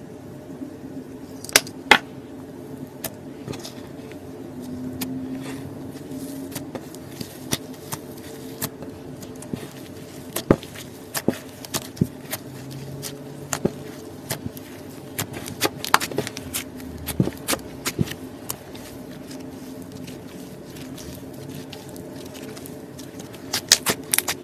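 Slime being played with by hand, giving scattered sharp pops and clicks over a faint steady hum.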